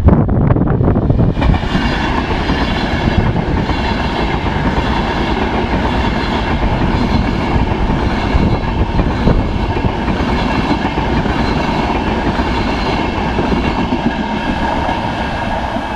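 High-speed passenger train passing close by: a steady loud rush of wheels on rail with several whining tones over it, setting in about a second and a half in and easing slightly near the end.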